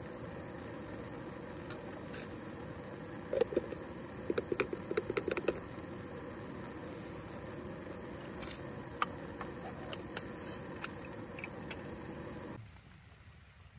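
Coffee-making gear handled by hand: a burst of rapid rattling clicks between about three and six seconds in, then a few single clicks, over a steady hiss that cuts off abruptly near the end.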